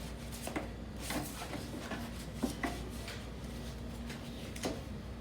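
A few light, scattered clicks and knocks, the sharpest about halfway through, over a steady low hum.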